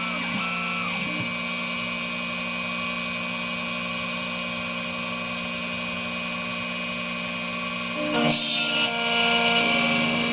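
Xhorse Dolphin XP005 key cutting machine running with a steady motor hum as it cuts a Kwikset KW10 key. About eight seconds in, the cutter bites into the key blank with a sudden loud grinding burst that settles into a steadier cutting sound for about two seconds.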